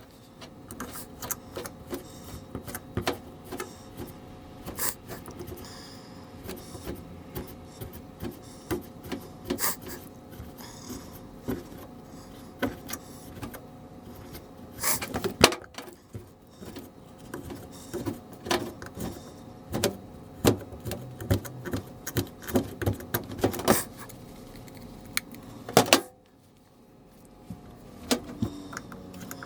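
Light, irregular metallic clicking and rattling over a steady hum, with louder clusters of clicks partway through. The sound cuts out suddenly about 26 seconds in.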